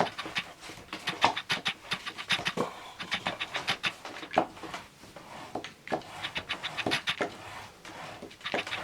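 Quick, irregular scratching and rubbing strokes, several a second with uneven gaps, from hand work on a surface.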